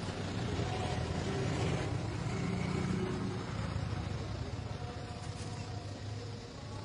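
A steady low rumble with a noisy hiss over it, swelling a little about two to three seconds in and easing slightly near the end.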